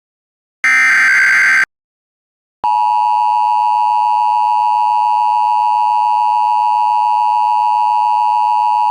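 A one-second burst of Emergency Alert System SAME header data, a harsh electronic screech, then about two and a half seconds in the EAS attention tone starts and holds steady.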